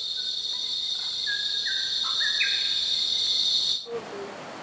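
Rainforest insects give a steady, high, continuous drone, and a bird whistles a few short, clear notes at stepping pitches over it. A little under four seconds in, the drone cuts off and the even rush of a fast-flowing river takes over.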